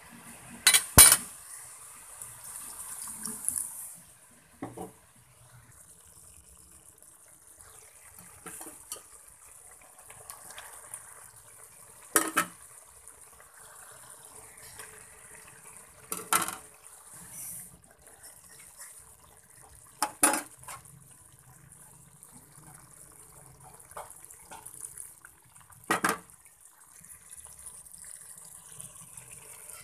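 Perforated metal skimmer ladle clanking and scraping against a wok while vegetables and mushrooms are stirred in a thickened sauce, over a steady sizzle. A sharp metal clank comes every few seconds, the loudest two about a second in.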